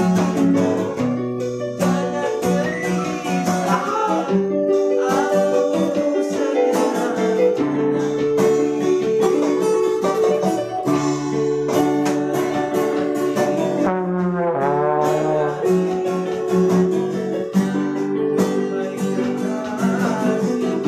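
Acoustic dangdut band playing unplugged: a trombone carries the melody over a strummed acoustic guitar and sustained electronic keyboard chords. The melody swoops through one pitch bend about two-thirds of the way through.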